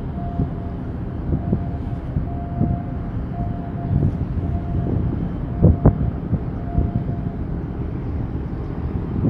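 Harbour ambience: a steady low rumble with choppy water and gusty noise, and a few sharper bursts a little past halfway. A faint electronic beep repeats about once a second and stops near the end.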